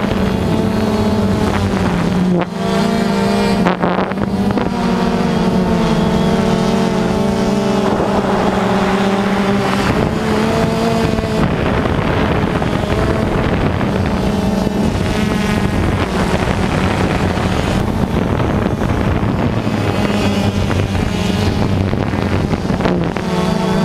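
Steady motor hum from the drone carrying the camera, holding a nearly constant pitch that shifts slightly now and then, with wind on the microphone.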